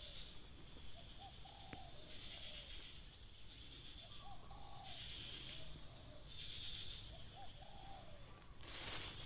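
Spotted doves cooing softly, several short groups of low, arching coos, over a steady high-pitched whine. A burst of rustling starts near the end.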